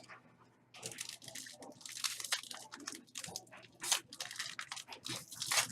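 Crinkling and rustling of trading-card packs and plastic sleeves being handled, with sharp crackles and card clicks in quick succession.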